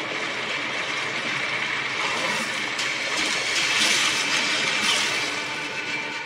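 A steady rushing hiss, even and without any tone, that swells a little past the middle and eases off near the end.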